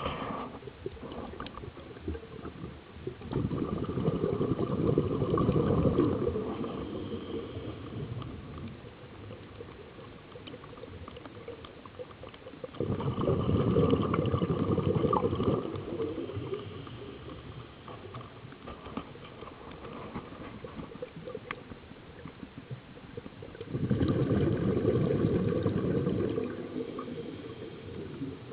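Scuba breathing heard underwater: three long exhalations through the regulator, about ten seconds apart, each a few seconds of rumbling, gurgling exhaust bubbles, with quieter stretches between.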